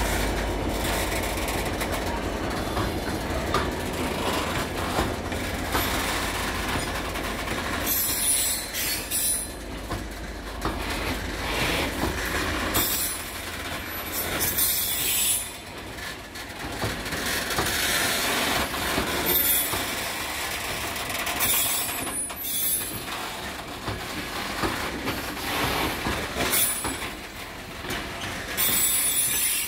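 Long rake of engineering wagons rolling past behind a GBRf Class 66 diesel locomotive, whose low engine rumble fades over the first dozen seconds as it pulls away. The wagon wheels clatter along the rails, with high-pitched wheel squeal coming and going every few seconds.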